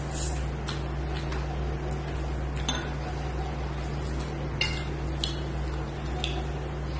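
Eating with the hand from a stainless steel plate: chewing, and fingers mixing rice and curry on the plate, with scattered short clicks and light clinks on the metal. The strongest come about halfway through. A steady low hum runs underneath.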